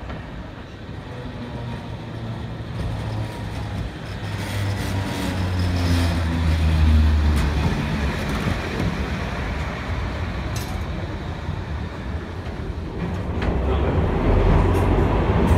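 Vintage M-24 tram rolling in on street rails, a low rumble of wheels and motors that grows louder as it comes close and is loudest about seven seconds in as the cars pass alongside. A sharp click comes about ten seconds in.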